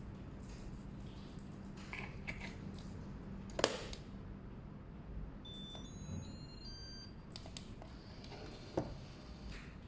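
A sharp click, then a quick run of short, high electronic beeps at several different pitches, and another click near the end.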